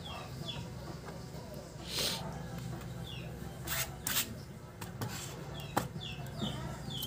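Short, high, falling chirps repeating from birds, over a steady low hum. About halfway through come a few sharp clicks and taps as the phone and its parts are handled and set down on the table.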